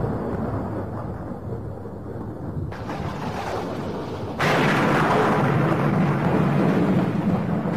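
Rumbling noise that fades, then a much louder rumble that starts abruptly a little past halfway and keeps going.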